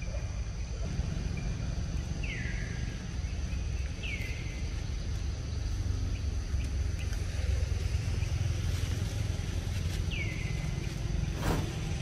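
Forest ambience: a steady low rumble under a steady high hum, with a bird giving a short downward-sweeping call three times. A single sharp click comes near the end.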